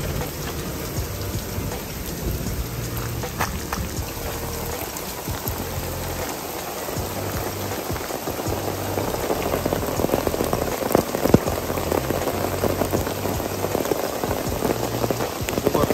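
Rain falling steadily, with individual drops ticking sharply close by; the rain grows louder about halfway through.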